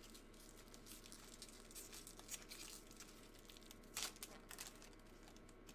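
Faint crinkling of a foil trading-card pack wrapper being handled, with a short louder crackle about four seconds in.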